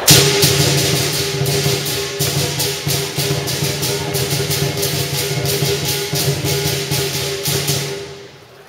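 Lion dance percussion ensemble of large drum, gong and clashing cymbals playing fast and dense, the gong's ringing tone held under rapid cymbal crashes. It starts with a loud hit and dies away just before the end.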